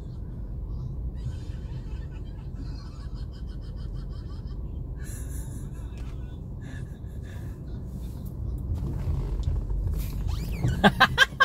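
Steady low rumble of a car on the move, heard from inside the cabin, with faint higher sounds over it and a short run of loud, sharp sounds near the end.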